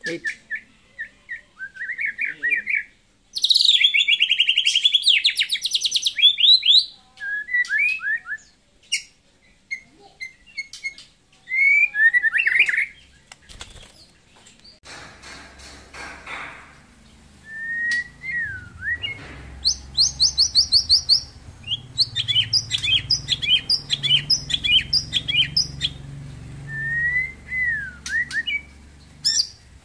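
White-rumped shama (murai batu) singing a varied song: loud, fast trills and rattling runs, clear whistled notes that dip and rise again, in separate phrases with short pauses. A low rumble sits underneath from about halfway.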